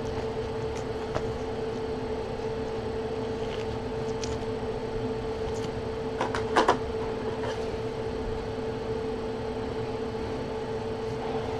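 Stiff chrome trading cards being shuffled through by hand, with faint clicks and a pair of louder taps a little past halfway. Under them a steady mechanical hum holds one tone throughout.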